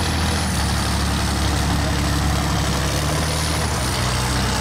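Heavy off-road truck's engine running steadily as the truck works through deep mud, its note stepping a little lower near the end.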